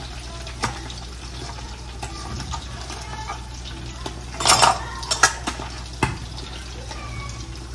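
Fish frying in a pan with a steady sizzle, with a few short kitchen knocks and clatters from food being handled at the cutting board, the loudest a little after four seconds in.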